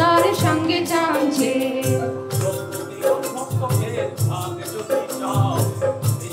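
A song playing: a singing voice over a steady beat of drums and a rattling shaker.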